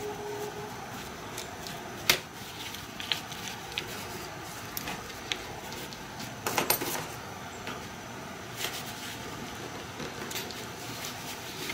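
Scattered small clicks and knocks of a pointed hand tool and a metal tag being worked while a hole is punched through a nylon dog collar, the sharpest click about two seconds in and a short cluster of knocks around the middle.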